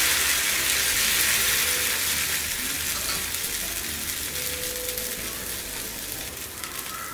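Freshly spread dosa batter sizzling on a hot cast iron tawa: a steady hiss that slowly fades as the batter sets.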